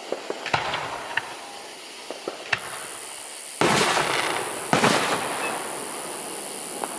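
Fireworks display going off: scattered sharp pops, then two loud bursts about a second apart, each fading away in a crackling wash.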